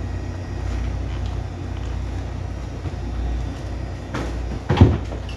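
Steady low rumble of the ship's running machinery heard inside the wheelhouse, with two knocks near the end, the second louder.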